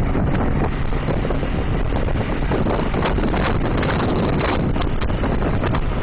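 Wind buffeting the microphone on a moving Honda ST1300 motorcycle, over a steady low rumble of engine and road noise.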